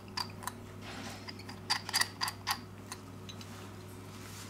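Light, sharp clicks of a precision screwdriver working the small bottom screws of a ZTE Nubia M2 smartphone, about seven in the first two and a half seconds, then they stop.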